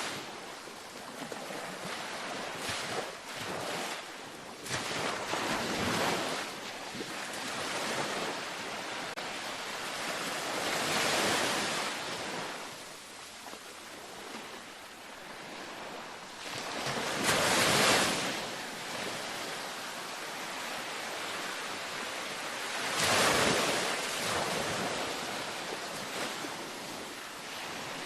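Gentle ocean waves breaking on a beach, with a steady hiss of surf. Louder surges come about every six seconds in the second half.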